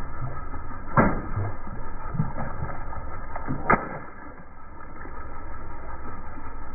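Water balloons bursting under a slowly rolling car tyre: two sharp pops, about a second in and near four seconds, with smaller crackles and water splashing over concrete between them, over a steady low hum.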